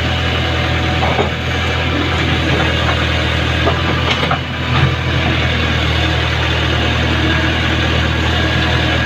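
JCB backhoe loader's diesel engine running steadily, with a few brief knocks about a second in and again around four to five seconds in.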